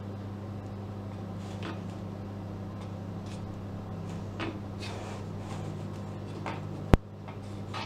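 Rubber spatula scraping and smoothing cake batter in a metal cake tin, in soft, scattered strokes over a steady low hum. One sharp click about seven seconds in.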